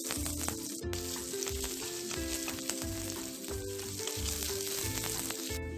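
Green chilies, ginger-garlic paste and dried red chilies sizzling in hot sesame oil as they are stirred and sautéed in a pan. Background music with a steady low beat plays under the sizzle.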